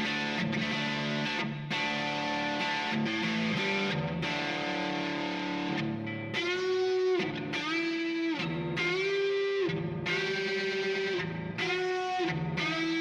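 Electric guitar, a Gibson ES-339 semi-hollow with '57 Classic humbuckers, played overdriven through a Kemper amp profile. The first half is chords; from about halfway it turns to held single lead notes, several bent up in pitch and released.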